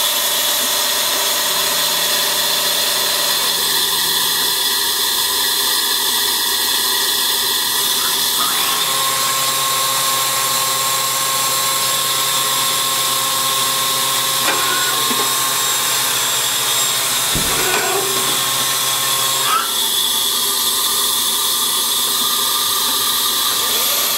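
Tsugami S20D CNC Swiss-type lathe running with its spindles and live tools spinning: a steady mechanical whine over hiss. The set of tones changes at about nine seconds in and again near twenty seconds, and there is one brief knock shortly before the second change.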